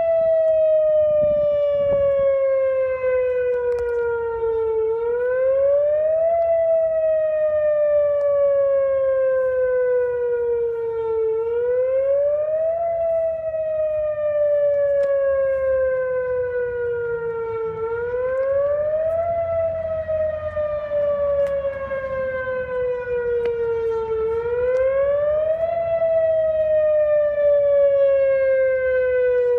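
Whelen fire department siren sounding a wail for an emergency call: one loud tone that rises quickly, then slides slowly down, repeating about every six and a half seconds.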